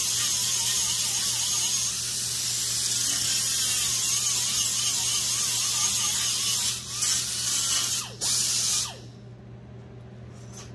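Small air grinder whirring at high speed as it rounds off the sharp edges of a scrap-wood tool, its pitch wavering as it is pressed into the wood; it dips briefly twice and stops about nine seconds in. A steady low hum runs underneath.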